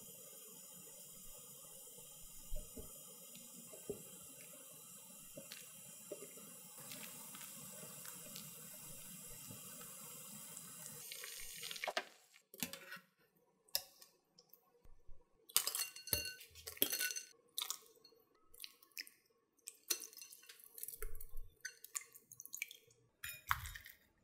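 Water running from a kitchen tap into a sink, stopping about halfway through; then a series of short knocks and clatters.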